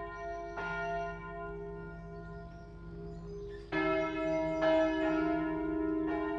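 Church bells ringing: four fresh strokes in a few seconds, each left to ring on, with a lower-pitched bell joining a little past the middle.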